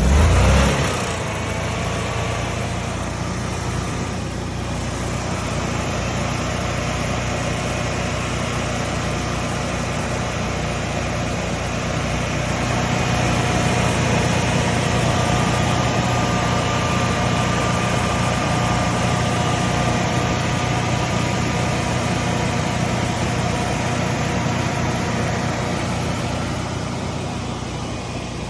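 Generac Guardian 20 kW home standby generator engine catching and settling into a steady run, with a loud surge in the first second. It is now running on gas after its frozen gas regulator was thawed with warm water, clearing the over-crank no-start fault.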